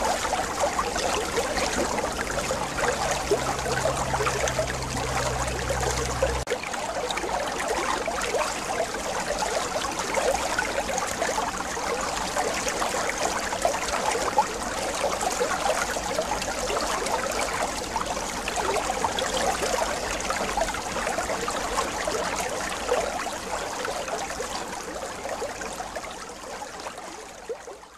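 Water running and trickling into aquarium tanks, a steady splashing hiss, with a low steady hum that stops about six seconds in. The sound fades out near the end.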